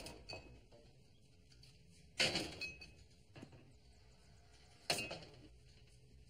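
Dishes and glassware being handled at a kitchen sink: two sharp clinks, one about two seconds in and one near five seconds, with a few faint knocks between.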